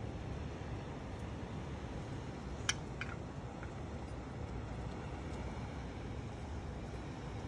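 Steady low background rumble, with one sharp click about two and a half seconds in and two fainter clicks just after.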